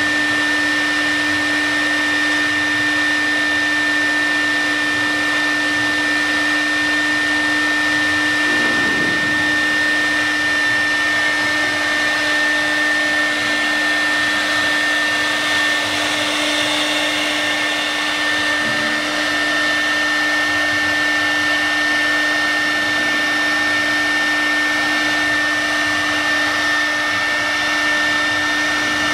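CNC wood router's spindle running at high speed and engraving into a wood board: a steady high whine and a lower hum over a continuous rushing noise.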